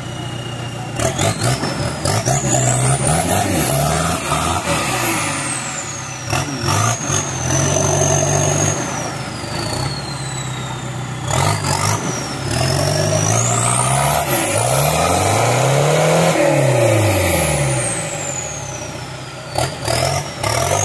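Modified off-road 4x4's engine revving hard in repeated surges, its pitch climbing and falling again and again as the wheels spin through a muddy river and up the bank, with a high whine rising and falling alongside and a few sharp knocks. Water and mud splash under the spinning tyres.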